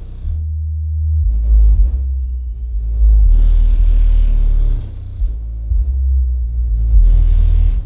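Heavy dub music played loud through a sound system with large Earthshaker Bassmaster bass bins: a deep bass line stepping between notes dominates, with loud bursts of hiss in the high end near the start, from about three to five seconds in, and near the end.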